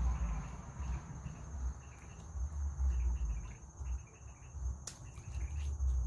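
Insects holding a steady high-pitched drone, with scattered short bird chirps over it and a low rumble that comes and goes. A single sharp click about five seconds in.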